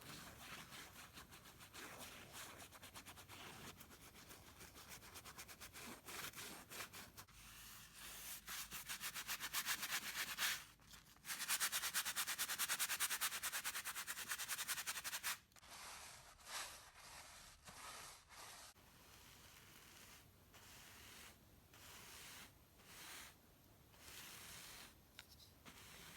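Paintbrush bristles rubbing across canvas in quick back-and-forth strokes. The scrubbing grows louder and faster for several seconds in the middle, with a brief pause, then eases into lighter strokes.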